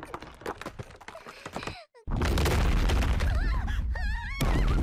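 Anime sound effects: soft clicks and rustles, a brief cut to silence about two seconds in, then a loud sustained rumbling crash with a heavy low end. High, wavering voice-like cries rise and fall over the rumble and cut off abruptly near the end.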